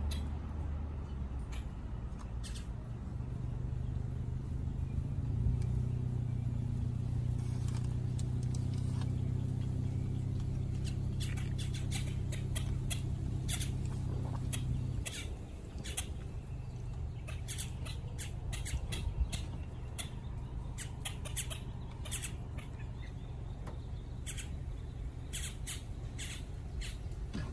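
A duck dabbling at the water's edge, with many quick wet clicks and splashes of its bill from about 11 seconds in. Under it runs a steady low mechanical hum that drops away about halfway through.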